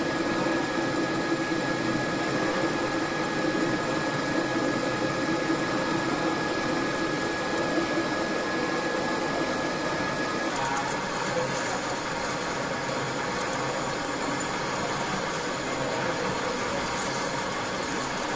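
Metal lathe running with the steel workpiece spinning: a steady mechanical hum with a thin high whine that stops about ten seconds in, after which a faint crackle rides on the hum.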